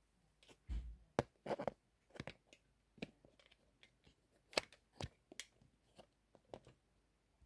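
Scattered clicks and knocks of plastic parts being handled and adjusted on a small light stand with a phone clamp, at irregular intervals.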